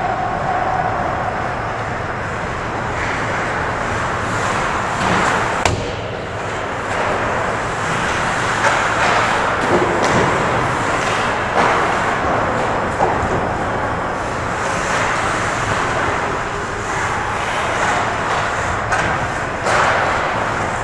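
Ice hockey play heard from behind the net: a steady hiss of skates scraping the ice, with scattered clacks of sticks and puck. The sharpest knock comes about six seconds in.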